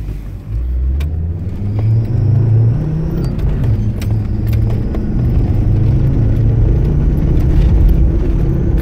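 Land Rover engine running hard under acceleration, heard from inside the cabin; its note climbs, falls back about three seconds in, then holds steady. Scattered clicks and rattles sound over it.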